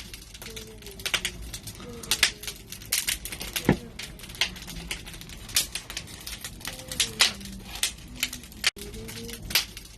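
Wood fire in a barbecue crackling, with sharp irregular pops several times a second; one pop about a third of the way in is the loudest.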